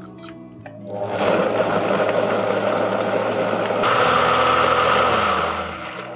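High-speed countertop blender running at full power, puréeing a thick mixture until smooth. It winds up about a second in, steps up to a higher pitch a little before the four-second mark as the speed is turned up, then winds down near the end.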